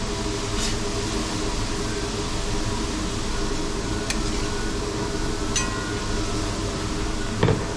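Steady hum and hiss of a ventilation fan, with a few light clicks and a knock near the end.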